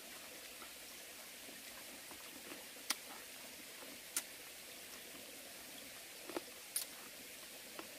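Someone chewing crisp Korean melon (chamoe): a few sharp crunches, about 3 s, 4 s and twice near 7 s in, over the steady low hiss of a stream.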